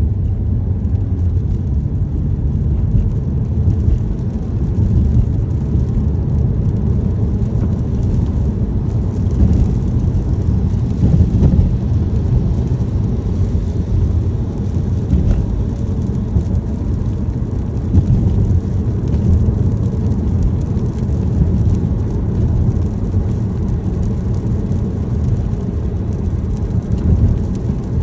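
Car driving in rain: a steady low road-and-engine rumble inside the cabin, with a faint hiss and scattered ticks of rain above it.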